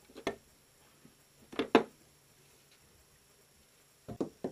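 Hard knocks on the sailboat's cabin structure: two sharp knocks at the start, two louder ones about a second and a half in, then a quick run of knocking near the end, about four a second. The knocking tests how solid the structure sounds.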